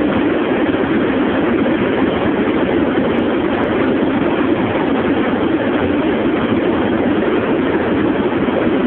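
Steady mix of wind, tyre and engine noise inside a Mercedes-Benz CL's cabin, holding at a steady speed past 220 km/h, with no change in pitch.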